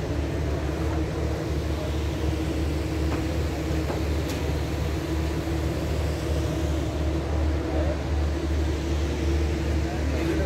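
Background noise of an exhibition hall: a steady low hum under a constant din, with no single event standing out.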